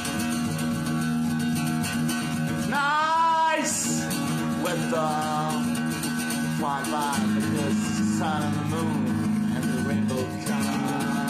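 Acoustic guitar strummed in steady chords, with a voice singing wordless, wavering notes over it at times.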